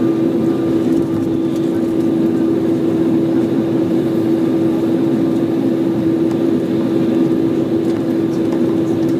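Inside the passenger cabin of an Embraer 190 taxiing on its General Electric CF34 turbofans at low power: a steady engine hum with one constant droning tone over an even rush of cabin noise.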